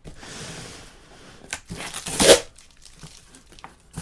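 Cardboard shipping box being torn open by hand, a papery ripping with a loud, sharp rip about two seconds in.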